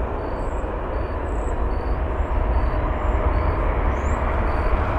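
Jet engines of a United Boeing 737 on final approach and flaring to land: a steady rumble and rush that grows slowly louder as the plane nears the runway.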